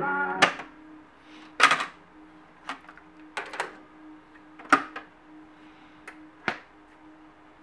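Music from the Fisher MC-3020 stereo cuts off, then a series of sharp mechanical clicks and clunks, about one a second, as its cassette-deck keys and controls are worked and the cassette door pops open. A faint steady hum runs underneath.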